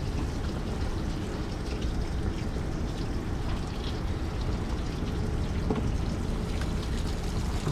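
Water pouring and trickling steadily, a continuous splashing wash of sound.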